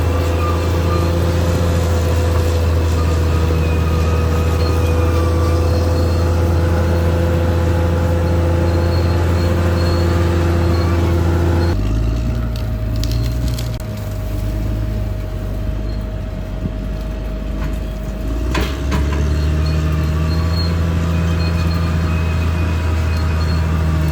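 Caterpillar D6R XL bulldozer's diesel engine running steadily under load. About halfway through the sound drops suddenly to a lower, rougher rumble with a few sharp knocks, and the steady engine sound returns for the last few seconds.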